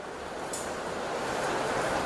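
Steady traffic-like street noise from a self-driving-car recording playing over the room's loudspeakers, with a light click about half a second in.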